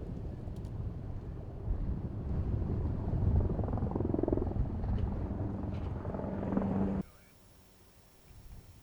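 Helicopter flying, a steady low rumble that cuts off abruptly about seven seconds in.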